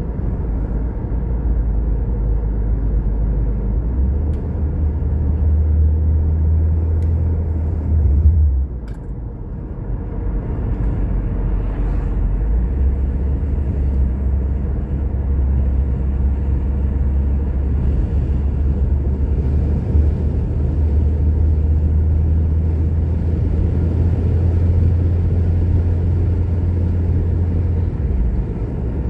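A car being driven, heard as a steady low rumble of road and engine noise with a brief dip about nine seconds in.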